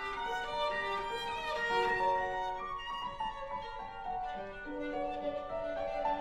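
Music: a violin playing a slow melody of long held notes.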